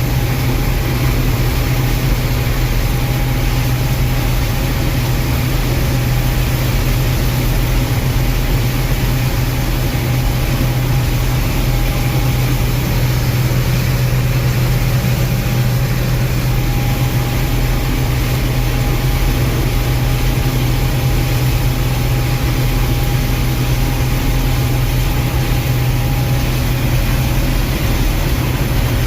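Gleaner M2 combine running steadily: a deep, even engine drone with a faint high whine over it.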